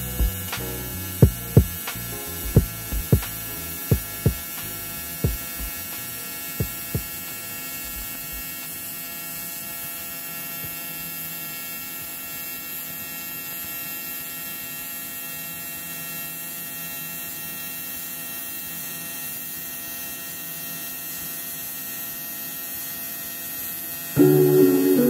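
Steady electrical mains hum, with about ten sharp clicks or taps over the first seven seconds. A louder, lower sound starts suddenly about a second before the end.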